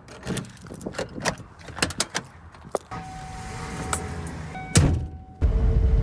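A run of clicks and knocks, then a rising hum and a loud thump like a car door shutting. After a short lull comes the steady low rumble of road noise inside a moving car's cabin.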